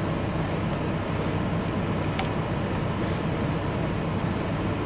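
Steady low rumble and hum of an idling truck, heard from inside the cab, with a faint click about two seconds in.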